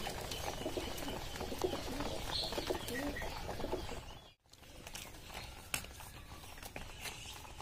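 Domestic pigeons cooing, a series of short low coos, fading to quieter background after about four seconds.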